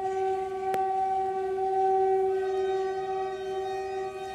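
Locomotive whistle held in one long steady tone. A second tone joins about two seconds in, sounding with it as a chord.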